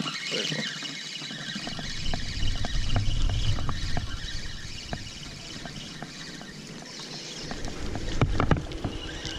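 Spinning reel being cranked to retrieve a freshly cast lure: a steady hiss with scattered small clicks. Low rumbling comes in about two to four seconds in and again near the end.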